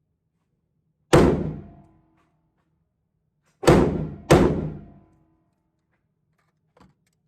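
Three handgun shots, the second and third about half a second apart, each with a short echoing tail.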